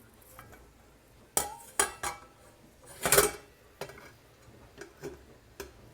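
A metal lid being set on a cooking pan: a few light clinks, then one louder clatter about three seconds in, followed by small ticks.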